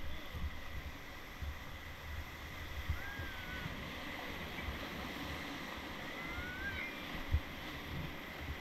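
Glacier-fed river water rushing under a raft, with wind buffeting the microphone in irregular low thumps.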